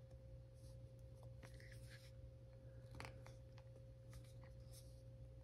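Near silence: room tone with a steady low hum and a faint steady tone, broken by a few faint soft ticks.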